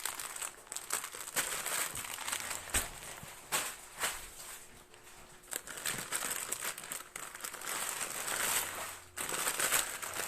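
Plastic packaging crinkling and rustling as items are handled and unwrapped, with many small crackles and clicks.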